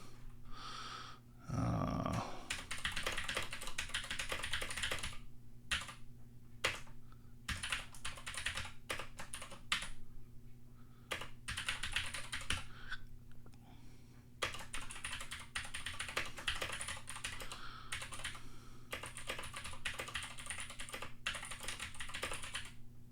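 Typing on a Keychron C1 mechanical keyboard with clicky Gateron G Pro Blue switches: runs of fast keystrokes with a few short pauses. The keys register cleanly, with no doubled keystrokes.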